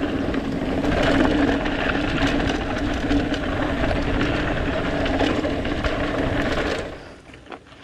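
Mountain bike rolling down a trail, recorded on the helmet camera: a steady mechanical buzz with rattles and knocks from rough ground, stopping suddenly almost seven seconds in as the bike comes to a halt.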